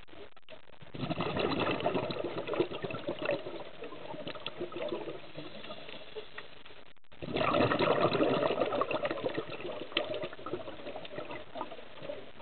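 Scuba diver's exhaled breath bubbling out of the regulator, heard underwater in two bursts about six seconds apart, each lasting a few seconds, over a steady faint hiss.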